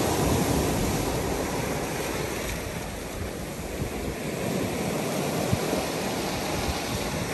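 Ocean surf: small waves breaking and washing up over a pebbly shore, a steady rushing wash.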